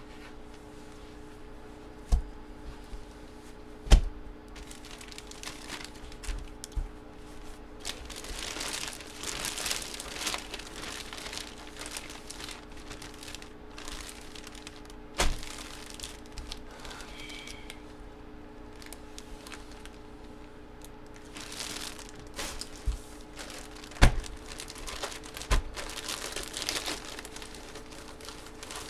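Plastic packaging crinkling and rustling as sports cards and their holders are handled, in two longer spells, with a few sharp knocks on a table.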